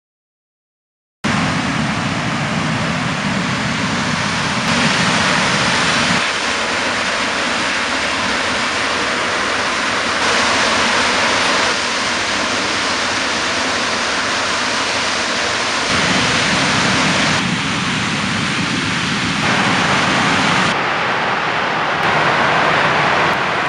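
Steady hiss of gas escaping under pressure from a pipeline ruptured by a bulldozer, starting about a second in; its tone shifts abruptly several times between edited clips.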